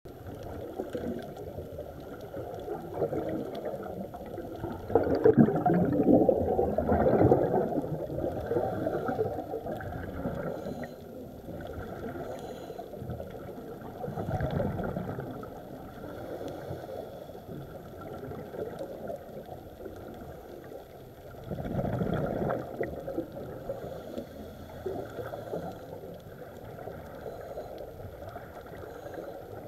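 Scuba regulator exhaust bubbles rushing past an underwater camera, in three louder surges several seconds apart (the longest and loudest about five seconds in), over a steady, dull underwater rush.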